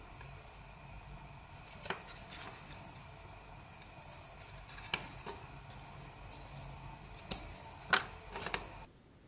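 Cardboard toilet-roll rings being handled and threaded with a needle and thread: soft rustling and light taps, with a few sharper clicks about 2, 5 and 8 seconds in, over a faint steady hiss.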